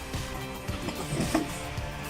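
Background music with held tones and a steady beat, with a brief louder swell about a second in.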